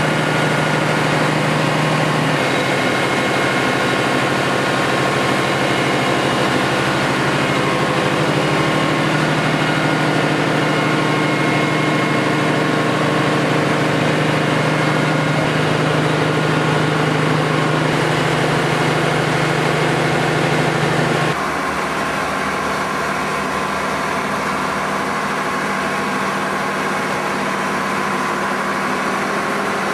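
Marine diesel engines and generator sets running steadily in a boat's engine room: a loud, constant drone with steady hum tones. About two-thirds of the way through, the sound abruptly becomes a little quieter and its pitch pattern changes.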